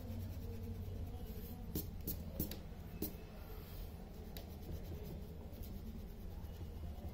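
Rubber eraser rubbing on drawing paper, a faint scuffing with a few light clicks about two to three seconds in, over a low steady hum.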